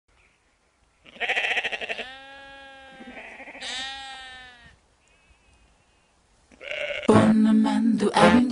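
A sheep bleating: a few long, drawn-out calls starting about a second in. Music starts near the end.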